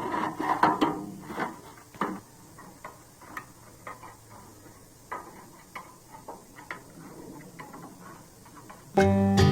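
Irregular light clicks and knocks, scattered and uneven in spacing. Banjo music starts shortly before the end.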